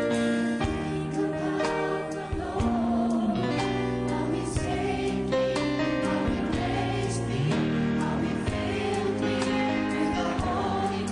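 Mixed choir singing a slow, sustained melody with live orchestral accompaniment.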